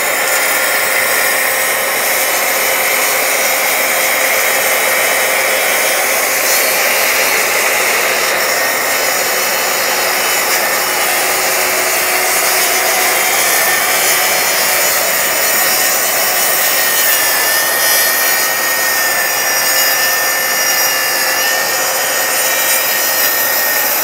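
Cordless plunge saw cutting along a guide rail through a 48 mm stack of laminated wood board and MDF at its full 46 mm depth, a steady sawing noise with a high whine held throughout.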